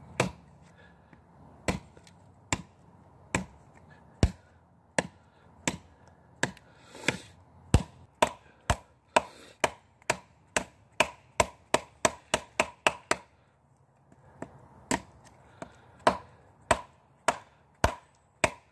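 A knife blade chopping repeatedly into wood in sharp separate strikes, about one a second at first, speeding up to about three a second midway, then after a short pause going on at a steady pace.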